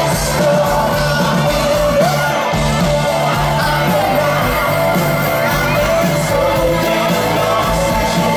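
Live pop-rock band playing through a concert PA, with electric guitars, bass, drums and a male lead vocal, and a crowd shouting and cheering along.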